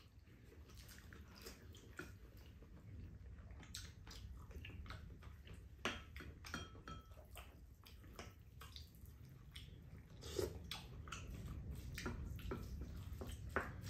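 Quiet eating at a table: chewing, and spoons clicking and scraping against ceramic bowls in many short sharp taps, busier in the second half, over a steady low hum.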